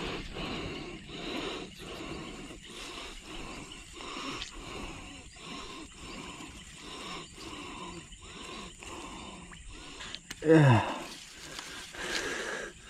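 A faint pulsing background, then about ten and a half seconds in a man's short, loud exclamation that falls steeply in pitch.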